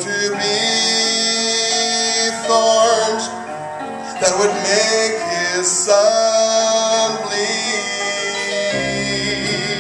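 A man singing a gospel song solo into a handheld microphone, with instrumental accompaniment.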